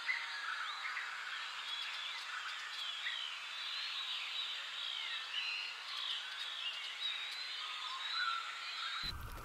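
Forest ambience of many small birds chirping and whistling at once, short rising and falling calls overlapping over a steady hiss. About nine seconds in it switches abruptly to a different background with a low rumble and scattered clicks.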